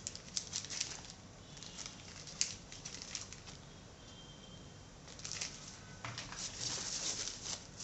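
Packaging being handled during unboxing: bursts of rustling with small clicks and taps, quieter in the middle and busier again near the end.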